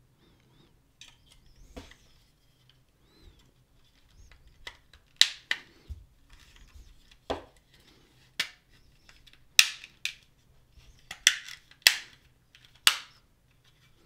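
Plastic snap clips of an LG smart TV remote's casing clicking into place as the back and front shells are pressed together: about a dozen sharp, irregular clicks, most of them in the second half.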